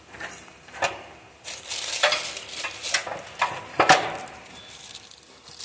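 Plastic sheeting and bubble-wrap packing crinkling and rustling as it is pulled off a motorcycle mudguard, with a few sharp clicks and knocks from the parts being handled, the loudest about four seconds in.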